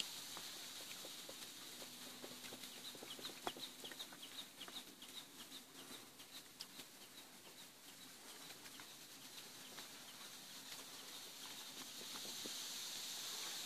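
Bird calls: a run of short high chirps, several a second, for about five seconds from a couple of seconds in, over a faint steady hiss.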